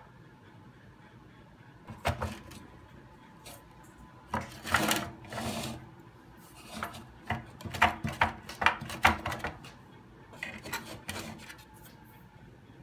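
Handling noise: irregular clicks, scrapes and rubbing sounds, with a longer rub about five seconds in and a dense run of sharp clicks around eight to nine seconds, dying away a little before the end.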